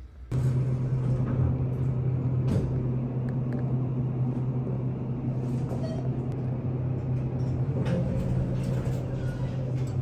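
A vehicle running with a steady low engine hum and a rumble over it, and a couple of faint knocks.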